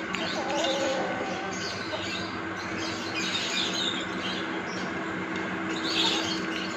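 Chickens feeding, with a short call about half a second in and bird chirps around the middle and near the end, over a steady low hum.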